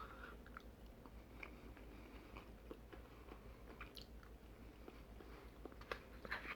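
Faint chewing: a person eating a mouthful of tuna and barley, with scattered soft mouth clicks.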